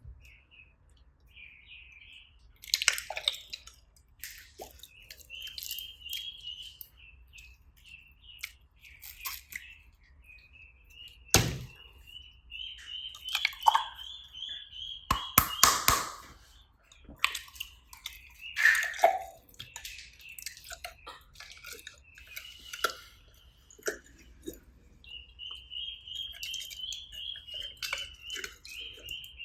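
Slime being squeezed and worked by hand, making wet clicks and sharp pops, the loudest about twelve and sixteen seconds in. Runs of quick, high chirping trills come and go behind it, a long run near the end.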